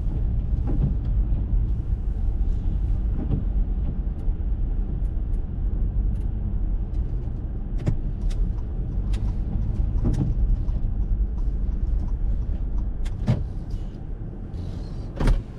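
Interior cabin noise of an Acura MDX moving slowly on wet pavement: a steady low rumble of engine and tyres. Scattered sharp ticks come through it, with one louder knock near the end.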